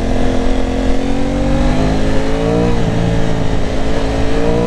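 Aprilia Tuono 660's parallel-twin engine pulling on the stock exhaust, its pitch rising steadily, then dropping once a little over halfway through and climbing again. Wind rushes over the helmet microphone underneath.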